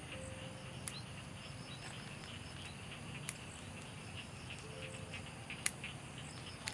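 Insects chirping: a steady high buzz with short repeated chirps, and a few sharp clicks, the loudest about three-quarters of the way through.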